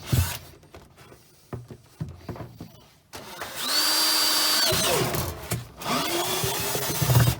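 Power drill boring a starter hole through the wall of a plastic 25-litre barrel. After a few light knocks, the drill runs steadily with a high whine for about three seconds and winds down. It spins up again, rising in pitch, near the end.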